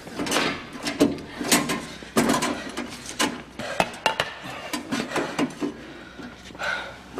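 Irregular knocks and clatters of hard objects being handled, a dozen or so sharp hits spread unevenly through the stretch.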